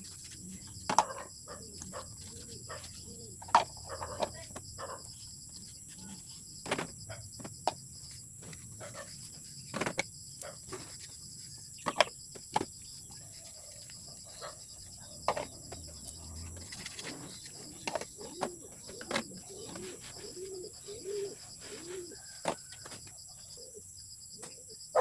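Plastic feeding cups clacking sharply as they are wiped, set down and stacked on a table, a knock every second or two. Pigeons coo softly in the background, most clearly a few seconds before the end.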